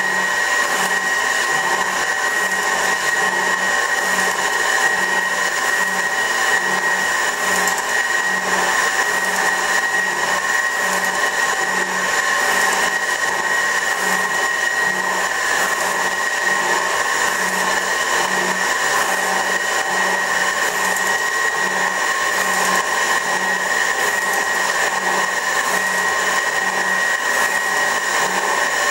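A 24-inch Värnamo metal shaper running and cutting, its ram stroking back and forth across the work. It makes a steady mechanical whine with a regular low pulse a little over once a second.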